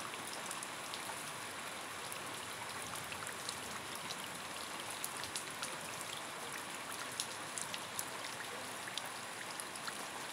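Steady rain hiss with scattered fine drop ticks.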